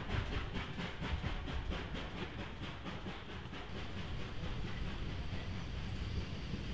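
Steam locomotive chuffing as it pulls a train away, its exhaust beats coming about five or six a second and fading as it recedes. About three and a half seconds in, a sudden change to a steadier low rumble and hiss of steam.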